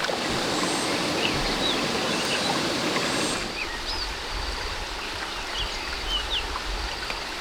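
Stream water flowing and rushing, a little softer from about three and a half seconds in, with a few faint short bird chirps above it.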